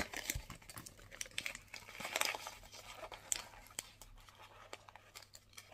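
Gift wrapping paper crinkling and crackling in the hands as a small wrapped present is handled and opened, in irregular faint crackles.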